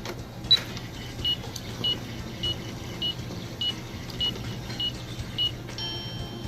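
Minnie Mouse toy microwave: a button beep, then a run of short, evenly spaced electronic beeps about every 0.6 s as its pretend timer counts down. Near the end comes a longer electronic tone as the cycle finishes. A low steady hum runs underneath.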